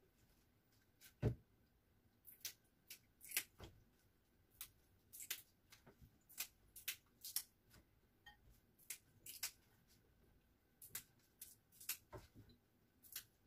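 Leafy greens being picked by hand: irregular small snaps and crisp rustles as leaves are plucked from their stems, with a light knock about a second in.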